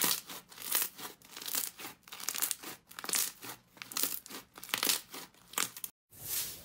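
Thick green slime squeezed and kneaded in two hands, crackling and squishing in quick repeated bursts, about two to three a second. The sound cuts off abruptly near the end.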